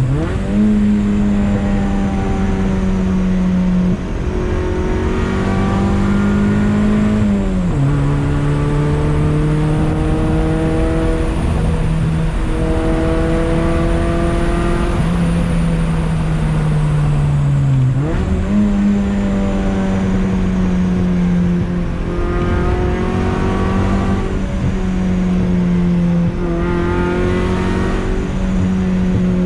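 Honda Accord wagon's F22B1 four-cylinder engine under way, holding steady revs for long stretches. The pitch drops about seven seconds in and climbs sharply again about eighteen seconds in, as with gear changes.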